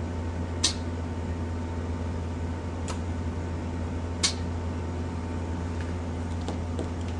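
A steady low mechanical hum, with three short, sharp clicks: one under a second in, one about three seconds in and one about four seconds in.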